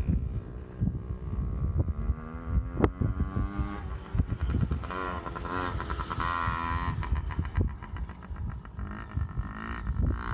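Dirt bike engine revving up and down as the bike rides the track, its pitch rising and falling several times. Underneath, a low rumble with sharp thumps of wind on the microphone.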